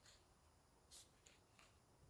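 Near silence with a few faint, short clicks, one about a second in and another shortly after.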